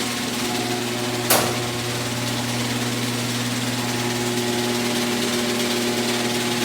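Electric garage door opener running steadily as it drives the door open, with a single sharp click about a second in.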